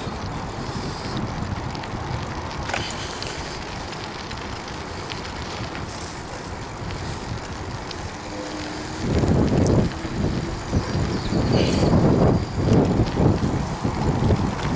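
Wind rushing over the microphone during a bicycle ride. Heavy low gusts buffet the microphone from about nine seconds in.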